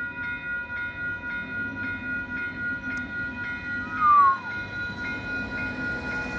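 Railway crossing warning bell ringing, struck about three times a second, as a passenger train draws close. About four seconds in there is a short, loud falling squeal.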